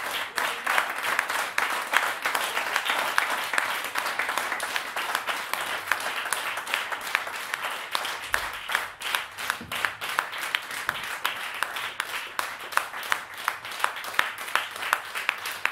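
Audience applause: many hands clapping, the claps falling into a steady beat near the end.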